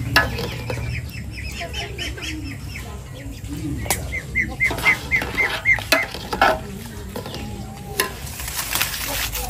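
Thick porridge being stirred in a cooking pot, with a few sharp knocks of the stirrer against the pot. A bird calls in quick runs of short high chirps, about four a second.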